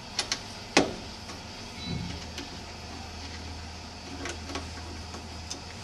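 A few sharp clicks and taps from hands handling a circuit board and its connector inside a metal instrument chassis, the loudest about a second in, then a steady low hum from about two seconds in.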